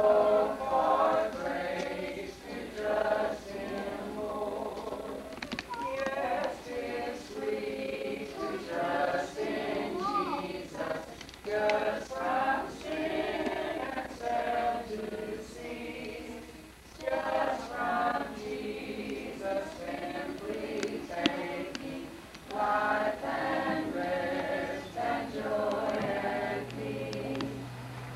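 A group of voices singing a hymn together.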